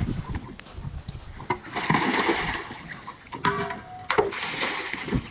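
Pool water splashing in two spells, with a few sharp knocks between them.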